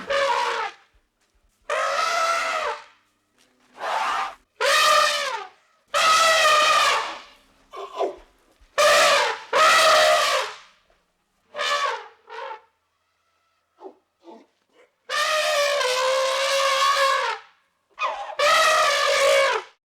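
Elephant trumpeting: a string of about a dozen high, pitched calls, each about one to two seconds long with short silent gaps between. The pitch of each call bends up slightly and then falls away, and the longest call comes about three-quarters of the way through.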